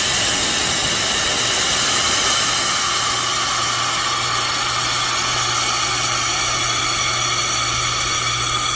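Steady, loud hiss of rushing gas, with a low hum underneath that strengthens a few seconds in.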